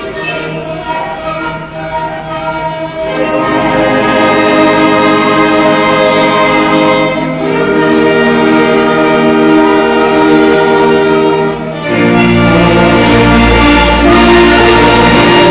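Church orchestra and band playing an instrumental overture: held chords that swell louder about three seconds in, then a fuller chord with heavy deep bass from about twelve seconds.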